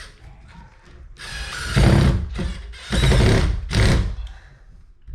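A screw being driven into a wood backing piece with a drill-driver, in three loud bursts of a second or less.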